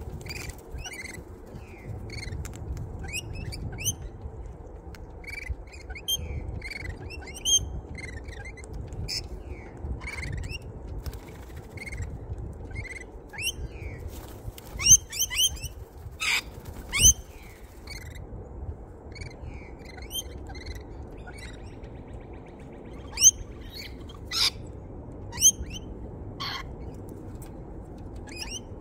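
Birds at a seed feeder calling: many short, high chirps throughout, with a few loud, sharp squawks about halfway through and again later, and some wing flapping.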